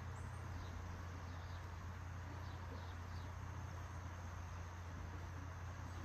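Quiet creekside evening ambience: a steady low hum under an even hiss, with a few faint, short, high chirps scattered through it.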